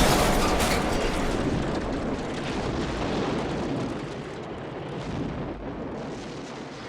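Cartoon explosion sound effect: a loud, noisy rumble that slowly dies away.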